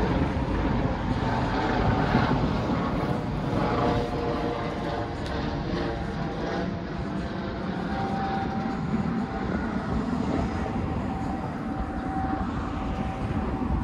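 Steady low rumble of city street traffic, with a faint engine whine holding one pitch through the second half.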